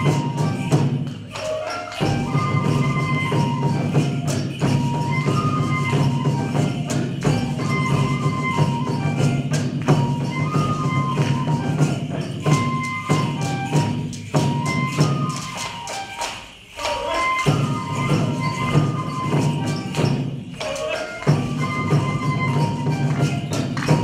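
Japanese koma odori (horse dance) folk music: a bamboo flute plays a repeating stepped melody over regular drum strokes and steady jingling. The music dips briefly about a second and a half in and again near 16 and 20 seconds.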